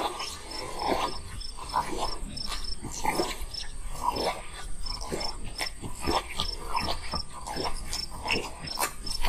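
Small animals crying out in short, repeated calls, one every half second to a second, over a faint insect chirping about four times a second.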